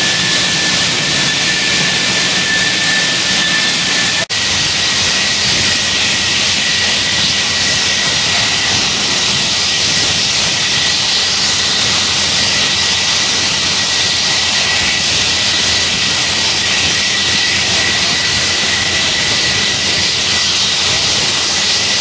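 Propane venting and burning from a fire-heated tank's relief valve: a loud, steady jet-like hiss with a thin whistling tone over it. The sound briefly cuts out about four seconds in and resumes with the whistle slightly higher.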